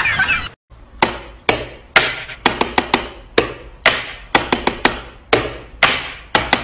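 Sharp clicking of wall light switches being flicked in a drum-like rhythm, about two hits a second with quick extra clicks in between, starting about a second in.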